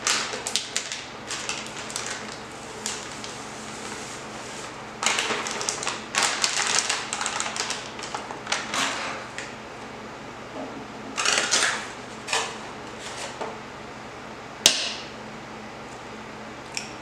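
A sugar cookie mix packet torn open and crinkled, then the mix poured and shaken out of it into a mixing bowl in several rustling spells. A single sharp knock near the end, with a small click just before the end.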